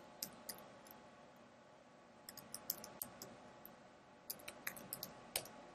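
Faint computer keyboard typing: irregular key clicks in two short flurries, about two seconds in and again about four and a half seconds in.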